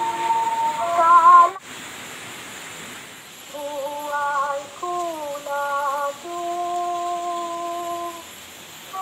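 A woman's voice singing a slow wordless melody with wavering held notes. It breaks off abruptly about one and a half seconds in, then after a short pause resumes with slow phrases, ending on a long held note.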